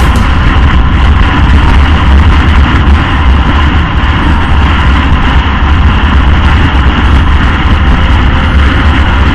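Motorcycle riding at highway speed: loud, steady wind buffeting on the microphone, with engine and road noise beneath it.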